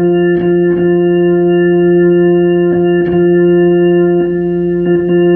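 Hammond organ tone held steady through the AO-28 amplifier, broken by brief crackles about half a dozen times as the wires on the amplifier's terminal strip are moved with pliers. The crackling is the sign of dirty, poorly soldered terminal connections.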